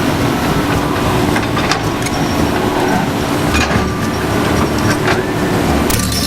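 Heavy diesel engine of construction machinery running steadily, with a few sharp metallic clanks.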